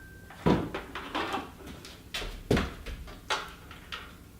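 Objects being handled and set down on a work surface: a series of about six knocks and clunks, the loudest about half a second and two and a half seconds in.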